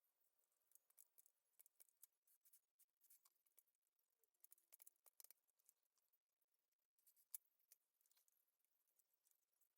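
Near silence with faint, scattered light clicks and ticks.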